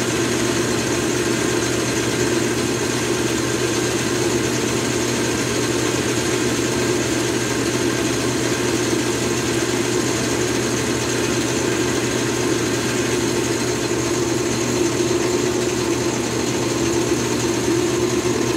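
Metal lathe running steadily, its spindle and drive giving an even hum, while a boring pass is taken in a pulley's mounting hub.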